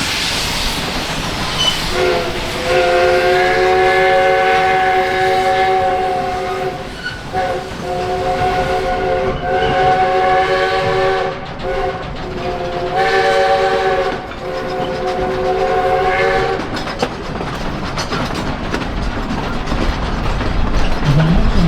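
Narrow-gauge steam locomotive D&RGW 491's chime whistle sounding three long blasts, a chord of several steady notes, over the steady rumble of the cars rolling on the rails, with wheel clicks near the end.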